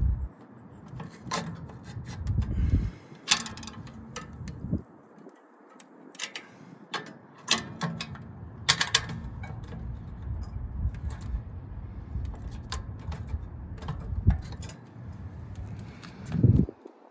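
Metal clicks and scrapes from the door hardware of a homemade propane-tank tent stove as it is handled: the round spinner air-vent plate is turned and the spring door latch is worked. There are many sharp clicks, scattered irregularly, over a low rumble that comes and goes.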